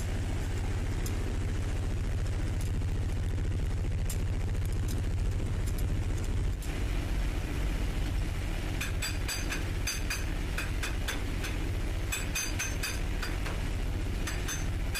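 Tugboat engine-room machinery running with a steady low drone. From a little past halfway, irregular sharp metallic clicks and ticks sound over it.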